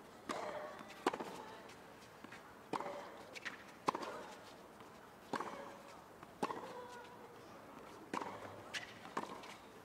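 Tennis ball struck by rackets and bouncing on a hard court during a doubles rally: sharp pops about once a second, with near quiet between them.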